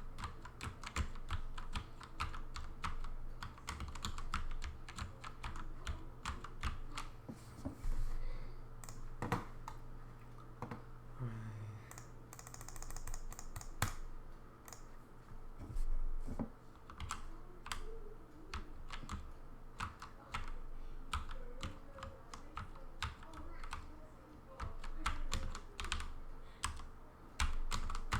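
Steno chording on a Redragon K552 mechanical keyboard with 3D-printed flat keycaps and light 15-gram springs: quick clusters of key clacks, several keys pressed together per stroke, in an irregular rapid rhythm with brief pauses between bursts.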